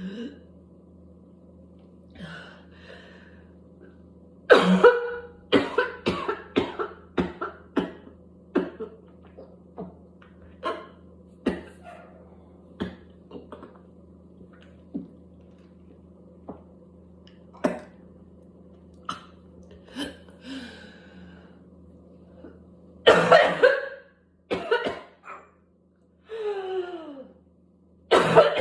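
A person with whooping cough in a coughing fit. About four seconds in comes a rapid run of short, harsh coughs, followed by scattered single coughs. Louder coughs come near the end, with a drawn-out, falling voiced sound between them.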